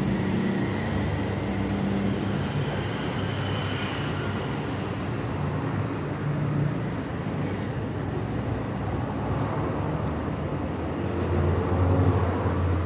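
Steady low rumble with a droning hum, swelling louder near the end.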